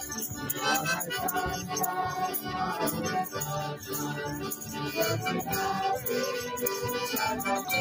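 Acoustic folk music without singing: acoustic guitar with a hand-held shaker keeping time, over steady held melody notes.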